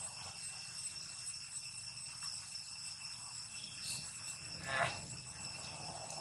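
Steady chorus of insects: several high-pitched tones held level. A brief louder sound comes about three-quarters of the way through.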